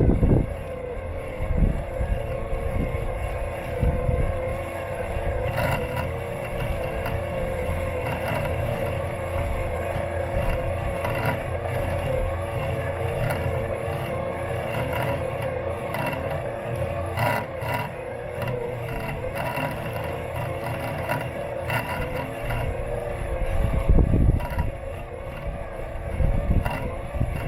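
Robot lawn mower's electric motors whining steadily, heard close up through a camera taped to its body, with an uneven low rumble and occasional knocks as it rolls over the lawn, the loudest knock about 24 seconds in.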